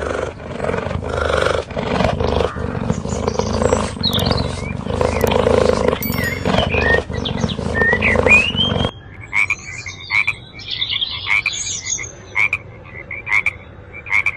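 Animal calls: a dense, noisy stretch of overlapping calls with a few high chirps, which cuts off abruptly about nine seconds in to a rhythmic series of short calls repeating about twice a second.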